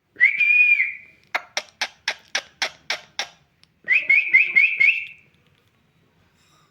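Pet parrot whistling: one held whistle, then a run of about eight sharp clicking calls at roughly four a second, then a quick string of five short rising whistle notes.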